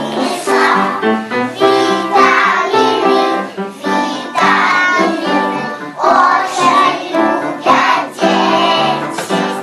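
Young children singing a song together with musical accompaniment.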